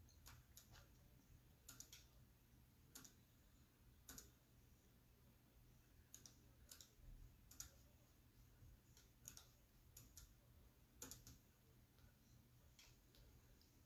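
Near silence with faint, irregular clicks, about one or two a second.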